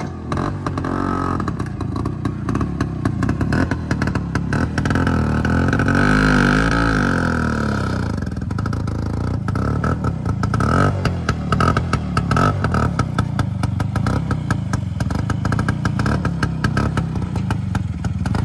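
Scooter engine running with a rapid, uneven beat as it is ridden, revving up and back down about six seconds in.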